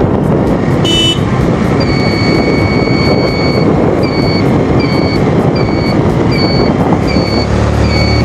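Riding a scooter: wind buffets the microphone over the scooter's engine. From about two seconds in, an electronic beeper sounds one long beep, then short beeps repeating about every two-thirds of a second.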